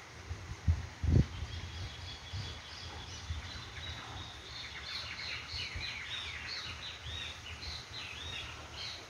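Birds in the tree canopy chirping: many short, quick, descending calls that come thicker and faster in the second half. A couple of low thumps about a second in are the loudest sounds.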